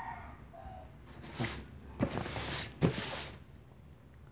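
Handling noise: rustling with two sharp knocks, about two and three seconds in.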